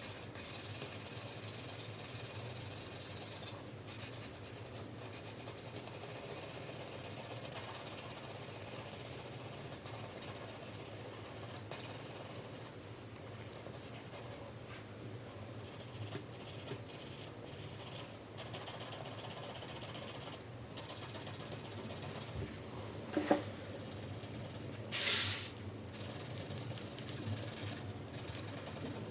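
4B graphite pencil shading on paper: continuous scratchy back-and-forth strokes with brief pauses. Late on there is a short click, followed by a louder hiss lasting about half a second.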